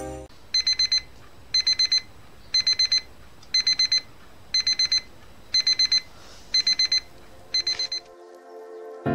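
Alarm clock beeping: a high electronic beep in quick sets of four, repeating about once a second, eight sets in all, stopping about a second before the end.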